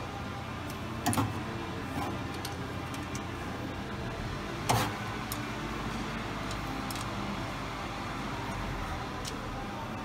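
A few light metallic clicks and knocks from hand work at a car's rear differential cover, the loudest about five seconds in, over steady shop background noise.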